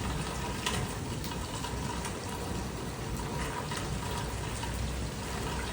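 Rainwater running off a roof gutter in a steady stream, over the steady sound of heavy rain.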